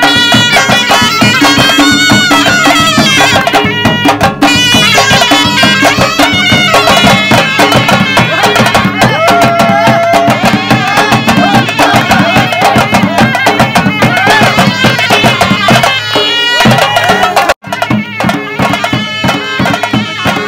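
Live Hunza folk dance music: drums, including a painted barrel drum, keep a steady beat under a wavering melody line. The sound breaks off for an instant near the end, then the music carries on.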